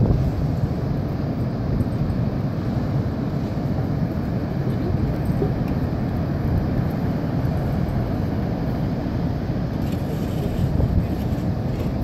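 Ocean surf breaking: a steady, unbroken rushing noise, heaviest in the low end.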